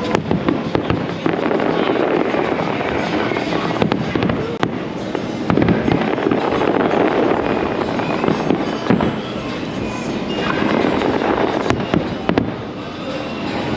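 Fireworks display: a dense, continuous run of bangs and crackling from shells bursting overhead.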